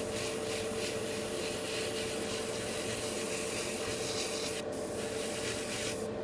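Airbrush spraying a coat of gunmetal metallic paint: a steady hiss of air and paint with a faint steady hum underneath. The hiss cuts out briefly twice near the end as the trigger is let off.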